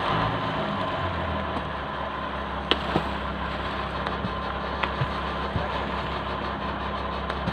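A fishing boat's engine idling steadily with a low, even hum, with a few sharp knocks about a third of the way in.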